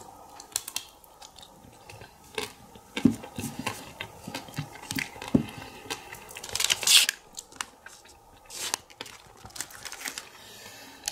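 Metallised foil ice-cream wrapper crinkling and rustling as it is handled, in a run of uneven crackles and clicks with a louder crinkle about seven seconds in.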